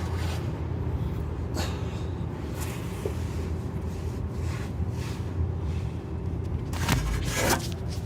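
Road and drivetrain noise of a BMW E93 328i, picked up from under the car near the rear differential while it drives: a steady low rumble with brief rushing swishes, the loudest about seven seconds in.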